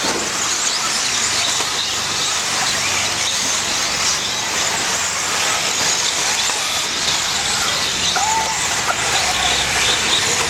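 Several electric 4WD radio-controlled off-road buggies racing, their motors whining up and down over a steady hiss of tyres on the track.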